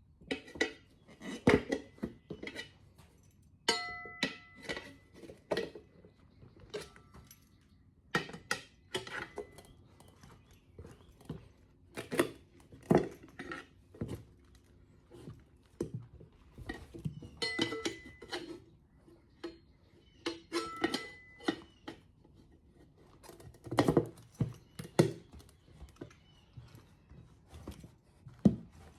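Steel tire irons clanking and scraping against a motorcycle wheel rim while the tire bead is pried on by hand: irregular metal knocks and clinks, some ringing briefly.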